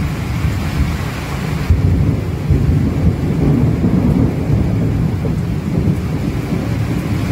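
Heavy rain hissing down, under a deep, continuous rumble of thunder that swells about two seconds in and keeps rolling.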